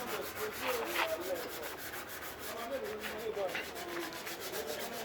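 Hand sanding of body filler on a car body panel: a steady run of quick back-and-forth rubbing strokes.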